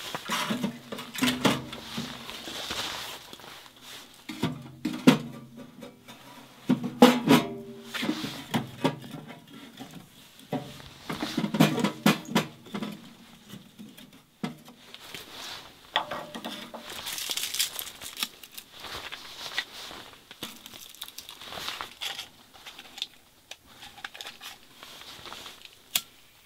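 Split firewood being loaded into a steel tent wood stove: logs knock and clatter against the steel firebox, several knocks setting the metal briefly ringing, with glove and wood rustling between.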